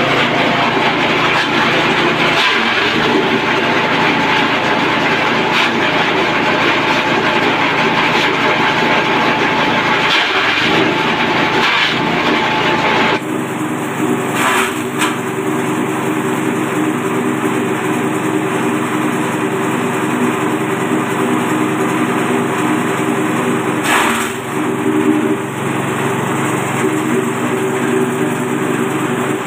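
JG350 forage chopper (cacah rumput machine) driven by its small 5.5 hp engine, running steadily under load while stalks are fed in and cut, with occasional crackling of stalks going through the blades. The engine's tone changes abruptly about halfway through.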